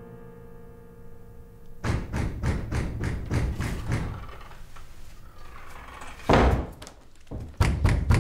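Repeated heavy knocking on a wooden door: a run of quick knocks, a single loud bang, then another fast run near the end. A low droning tone fades out just before the knocking starts.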